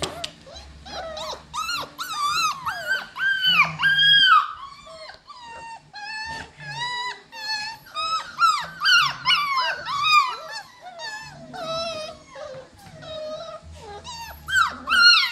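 Cockapoo puppies about seven weeks old yipping and whining in quick succession as they play-fight, many short high-pitched calls that rise and fall in pitch. The calls ease off briefly about five seconds in, then pick up again, with the loudest ones near the end.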